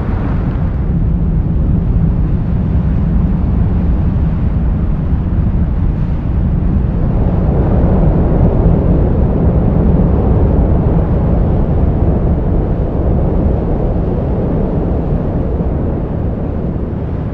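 Steady, low rushing wind buffeting the microphone of a GoPro mounted on a DJI FPV drone in fast flight through strong wind. It swells a little midway and eases off near the end.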